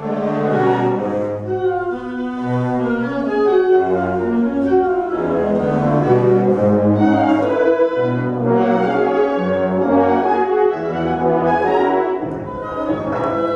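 Student concert band playing, brass to the fore: loud sustained chords over a low line that moves from note to note about once a second.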